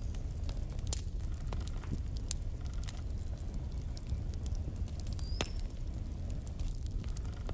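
Wood logs burning in a fireplace: irregular sharp crackles and pops over a steady low rumble, with a brief high whistle about five seconds in.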